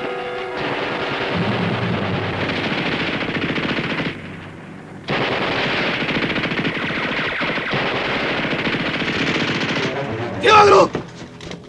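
Sustained automatic weapons fire, a long rattling burst that breaks off about four seconds in and picks up again a second later. Near the end a man gives a short, loud yell.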